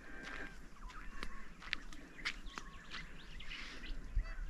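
Wild birds chirping at dawn: many short chirps and whistles from several birds, overlapping, over the faint hush of open air.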